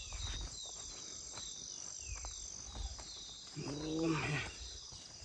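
Rural outdoor ambience: insects keep up a steady high-pitched drone, with repeated short falling chirps. A brief, single voice-like call comes about three and a half seconds in.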